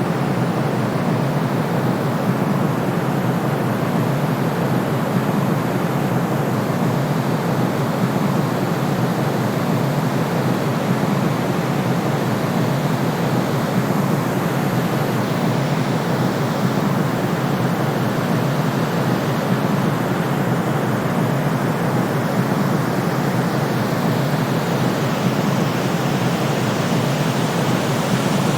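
Steady white noise played as a sleep aid for babies: an even, unchanging rushing hiss weighted toward the low end, with the deepest bass cut off.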